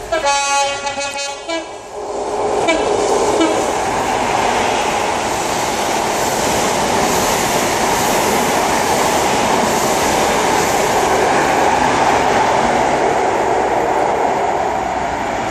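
A Great Western HST (InterCity 125) power car sounds its two-tone horn, two notes over about the first second and a half. The train then runs through at speed, with a loud, steady rush of wheels on rail as the power car and coaches pass.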